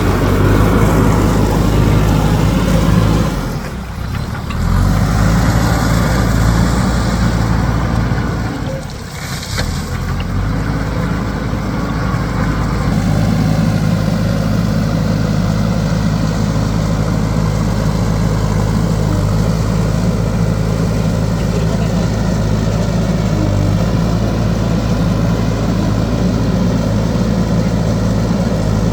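JCB backhoe loader's diesel engine running steadily under work. Its sound dips briefly twice in the first ten seconds, then holds even.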